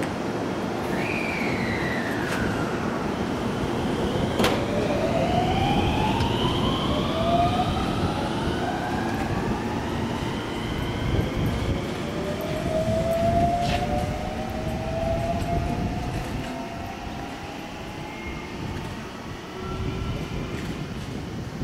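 Electric multiple-unit train pulling out of the station: its inverter-driven traction motors whine in several rising glides as it picks up speed over the rumble of the cars. Two sharp clicks stand out, and the sound fades as the train draws away.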